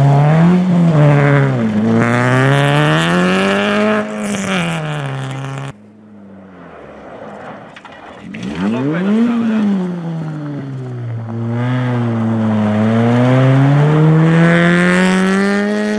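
Honda Civic rally cars' four-cylinder engines at high revs, one car after the other. The first revs up and down as it passes, then cuts off abruptly. The second car's engine shoots up in pitch about halfway through, drops, then climbs steadily as it accelerates away near the end.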